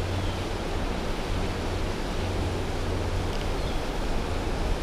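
Steady rush of shallow creek water flowing over rocks, with a low wind rumble on the microphone.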